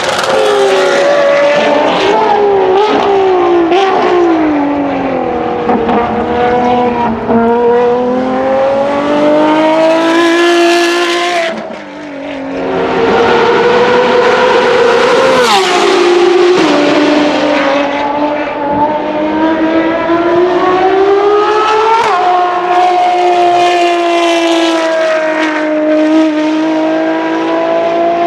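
Ferrari FXX-K's 6.3-litre V12 running hard at high revs, its pitch repeatedly climbing and then dropping with gear changes. The sound dips briefly a little under halfway through before rising again.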